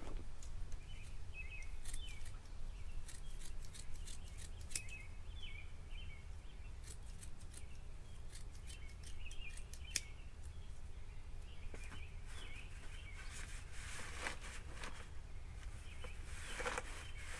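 Hand scissors snipping in short runs of sharp clicks, with birds chirping in the background.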